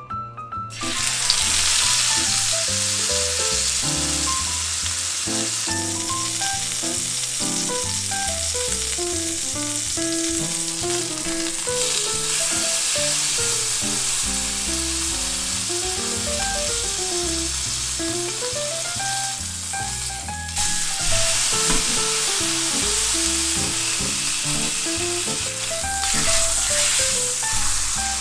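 Beef steak searing in hot oil in a nonstick frying pan: a loud sizzle that starts suddenly about a second in as the meat goes into the pan and runs on, swelling twice later.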